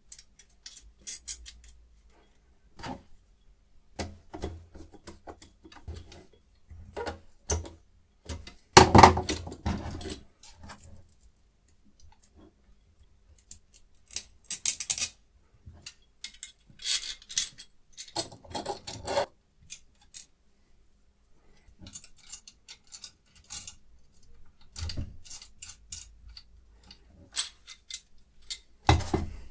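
Small metal parts of a knife sharpening rig being handled: irregular clicks and clinks, with a few longer, louder spells of clattering.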